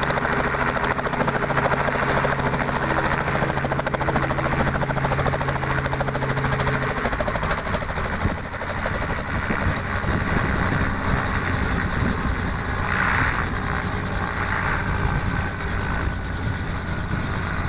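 Robinson R44 helicopter running on the ground, its main rotor turning and its piston engine running steadily. A low steady tone in the sound drops away about seven seconds in.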